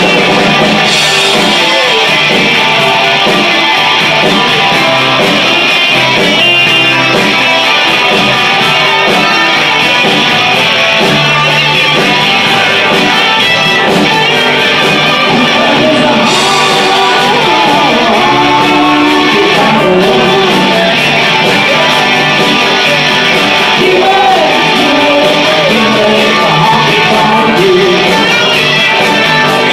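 Guitar-led band music, loud and continuous.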